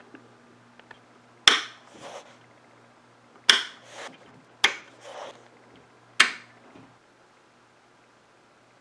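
Metal toggle switches on a tube amplifier's front panel, the high-cut tone switch among them, being flipped: four sharp clicks, each followed about half a second later by a softer click, over a faint low hum.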